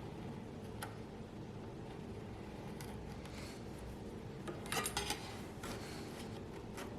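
A few light clicks and a short scrape of small hard objects being handled, with a quick cluster of sharp clicks about five seconds in, over a steady low hum.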